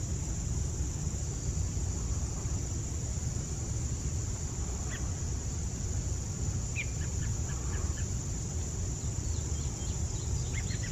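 Outdoor ambience: a steady high insect drone, with a few faint short bird chirps about five seconds in and again around seven to eight seconds.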